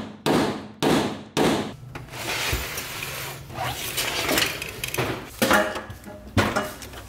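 Hammer blows on a chisel against the car body's sheet steel: three sharp metallic strikes about half a second apart. Then rustling and a few light knocks as a small plasma cutter and its cables are handled.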